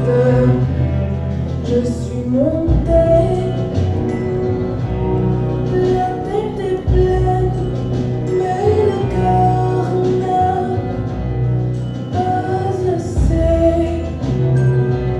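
Music with a melodic line that glides between held notes over a deep bass that restarts every few seconds; singing may be part of it.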